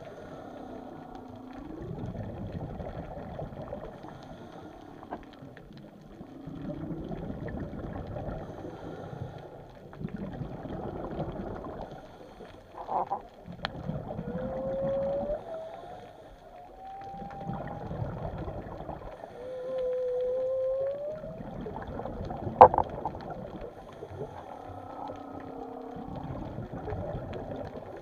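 Whales calling underwater: a series of moaning calls that glide up in pitch, with two clearer rising calls about halfway through. Under them a rushing noise swells and fades every few seconds, and there is one sharp click near the end.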